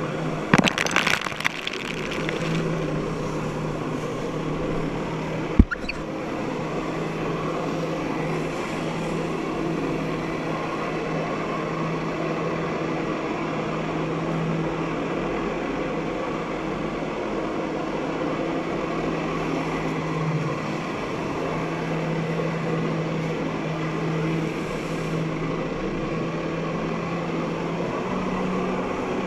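Jet ski engine running with a steady drone, its pump driving a flyboard through the hose. A burst of water spray splashes near the start, and there is one sharp knock about six seconds in. The engine note rises slightly near the end.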